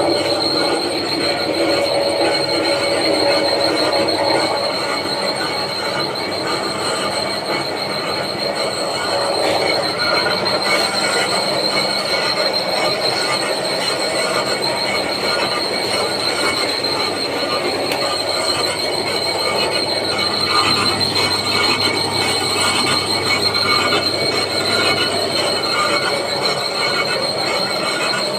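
Steady, loud machinery noise with a constant high-pitched whine and a low hum underneath, unchanging throughout.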